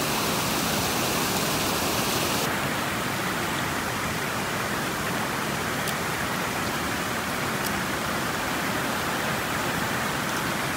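Steady rushing of water cascading over rock, with a brighter hiss for the first two seconds or so.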